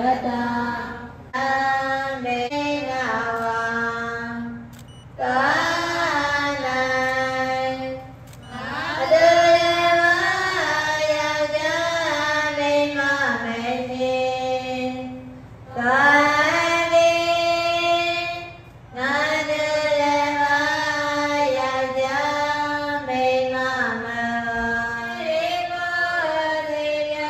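A female voice singing a slow, melodic Buddhist chant in phrases of about three seconds, each followed by a short pause.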